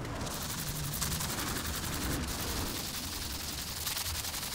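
Sandpaper on a hand sanding pad rubbed back and forth over a car's painted body panel: a continuous dry, rasping scratch full of fine rapid ticks and high hiss. The paint is being cut back to flatten orange peel before the final coat.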